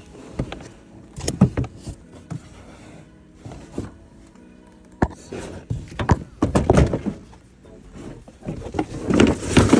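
Irregular thunks, knocks and rattles of a car's rear cargo-area trim panels being handled and moved aside, over background music.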